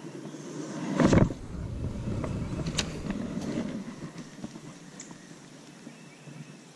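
Casting with a spinning rod and reel: a sudden loud whoosh about a second in, then the reel being cranked to bring the lure back, a low whir with a few clicks that fades away.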